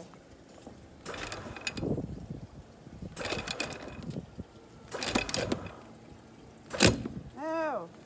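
Electric anchor windlass run in a few short bursts, with the steel anchor chain rattling through it: it is being jogged slowly because the chain is twisted and bunched up. A sharp clunk comes near the end, followed by a brief pitched vocal sound.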